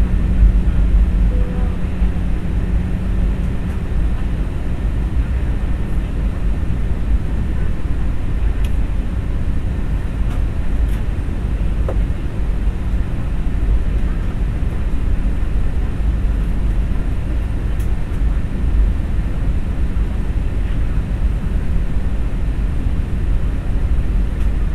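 Steady low rumble of an airliner's engines and airflow heard from inside the passenger cabin on approach to landing, with a low hum that fades out in the first few seconds.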